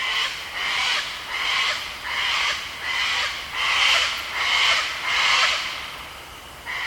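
A harsh, raspy call repeated in a steady rhythm, about one every three-quarters of a second, softening near the end.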